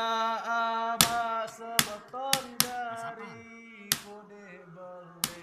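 A man singing a sahur wake-up song into a microphone, holding long wavering notes, with sharp percussive hits struck at irregular intervals.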